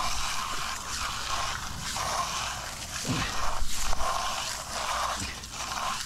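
Hand trowel sweeping across freshly poured, wet concrete, a scraping swish repeated about once a second.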